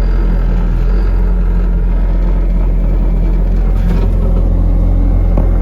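Skid steer engine running steadily with a deep, even drone.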